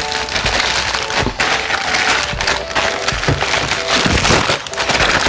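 A plastic courier mailer being torn open and pulled off a styrofoam box: continuous rustling and crinkling, with sharp crackles as the plastic rips.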